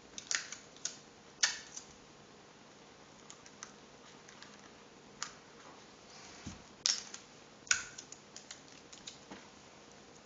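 Clear sticky tape pulled from a desk tape dispenser and torn off, with paper tubes handled and taped together: scattered sharp clicks and crackles, the loudest in the first two seconds and again about seven to eight seconds in.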